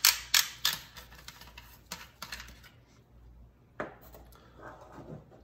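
Magazine cap of a Winchester SXP pump shotgun being unscrewed by hand: a run of sharp clicks as it turns, thinning out after the first second, then one more click near four seconds in and some light rubbing of metal.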